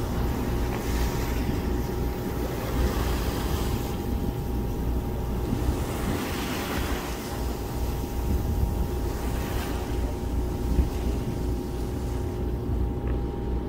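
Boat engine running steadily, a low rumble with a faint constant hum over it, with swells of rushing water and wind noise.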